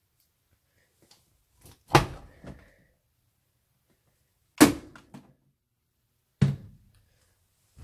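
Three sharp knocks about two seconds apart, each followed by a few softer knocks, like a door or drawer being shut.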